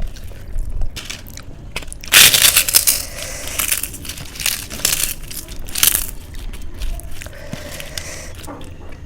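Crisp food crunched between the teeth close to the microphone: a string of loud crackling crunches, heaviest from about two to six seconds in, then lighter chewing.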